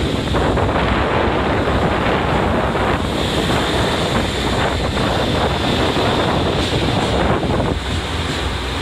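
Diesel limited express train pulling out of the platform and moving past, a steady rush of engine and running noise mixed with wind on the microphone.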